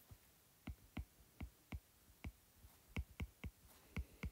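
Stylus tip tapping on a tablet screen during handwriting: a run of quiet, short clicks at uneven spacing, about two or three a second.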